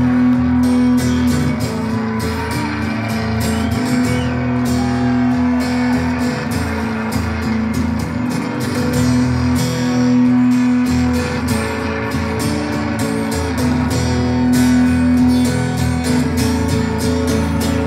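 Acoustic guitar strummed steadily in a live instrumental passage, with no singing.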